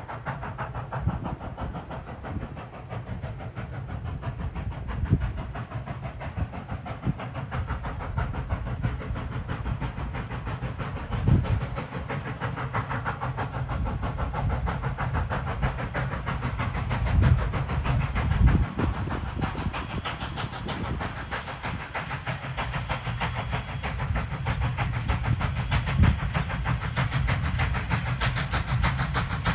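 Strasburg Rail Road No. 89, a 2-6-0 steam locomotive, working with its train: a steady hiss and running noise over a low rumble, with a few louder thumps along the way.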